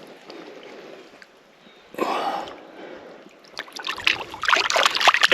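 Water trickling and sloshing around a barramundi held at the surface for release, then a burst of splashing near the end as the fish kicks away.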